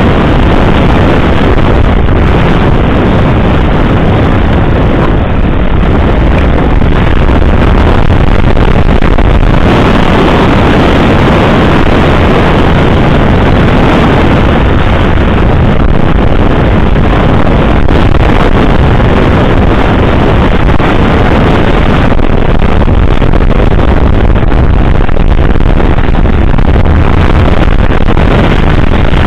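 Yamaha XT660Z Ténéré's single-cylinder engine running at speed, mixed with heavy wind rush on the bike-mounted microphone. It is a loud, steady, unbroken noise.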